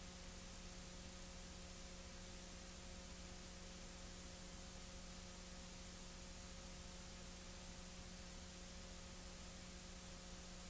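Faint steady hiss with a low electrical hum and nothing else: the noise floor of an old recording.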